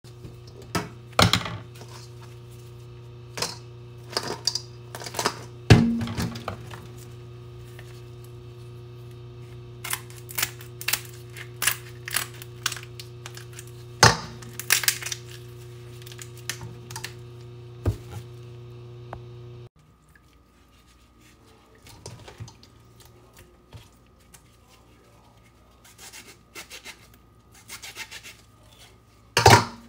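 Cooked lobster tails and snow crab legs being cracked and pulled apart by hand over a stainless steel bowl: a scattered series of sharp cracks and clacks of shell. A steady low hum runs underneath and cuts off suddenly about two-thirds of the way through.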